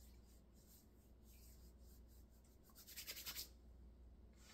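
Near silence with faint room hum, broken about three seconds in by a brief soft rustle made of quick, airy pulses.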